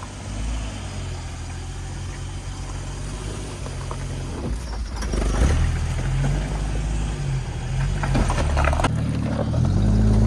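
Off-road 4x4's engine revving up and down at low speed while crawling over rocks, getting louder toward the end, with a few sharp knocks about halfway and near the end.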